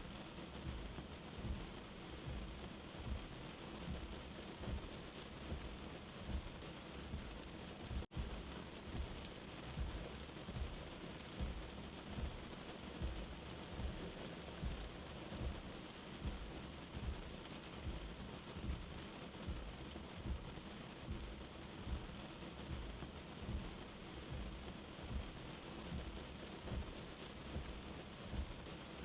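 Steady rain falling, an even hiss, with a low rumble that swells about once a second. The sound drops out for an instant about eight seconds in.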